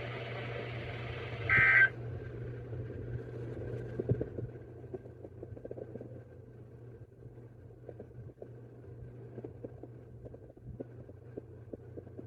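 Emergency alert radio broadcast at the end of a message: a short electronic data-tone burst about two seconds in, then dead air with a low steady hum, a faint thin tone and light crackle.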